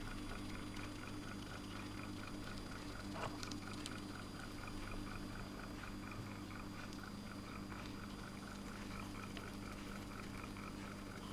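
Faint, steady electrical mains hum with a soft, regular ticking over it.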